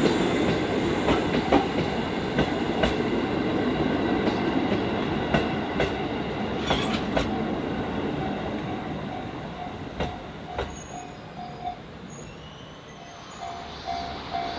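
A JR Agatsuma Line train passing over a level crossing, its wheels clicking over the rail joints, the rumble fading away over about ten seconds. As it fades, the crossing's warning bell is heard dinging in a steady repeating pattern.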